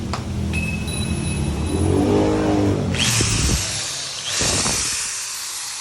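INGCO 680 W impact drill running with no load in its trigger tests, the motor speeding up and winding down as the trigger is squeezed and released, with a bright whirring hiss at full speed.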